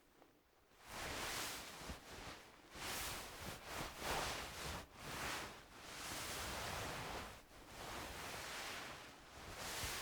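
Clothing fabric rustling and swishing as it is moved, in a run of soft swishes of uneven length.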